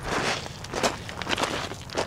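Footsteps crunching on loose river gravel, about two steps a second.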